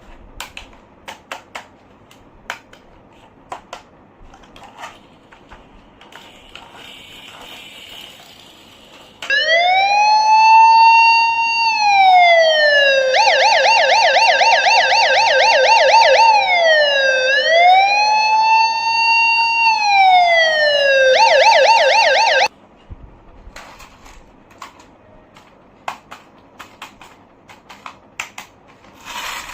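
Electronic toy police siren sounding loudly. A slow rising-and-falling wail alternates with a fast warble twice, then it cuts off suddenly. Before and after it come scattered light clicks and taps.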